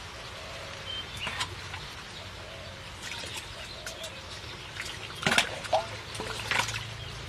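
Muddy water splashing as a steel bowl is scooped through a shallow ditch and emptied. A few sharp splashes come about a second in, and a louder cluster follows from about five to six and a half seconds in.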